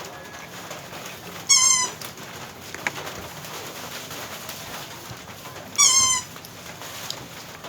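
An animal calling twice, about four seconds apart: two short, high-pitched calls, each under half a second.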